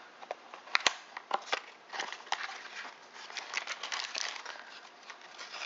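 Paper packaging being handled, crinkling and rustling with scattered clicks and taps; a sharp click a little under a second in is the loudest.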